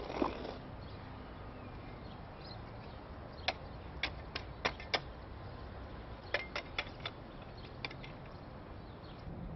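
A shovel driven into grassy soil with a thud just after the start, followed by scattered sharp clicks and taps, mostly in two clusters about four and seven seconds in.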